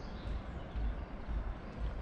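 Wind buffeting the microphone in uneven low thumps, about two to three a second, over a steady outdoor hiss, with faint bird chirps.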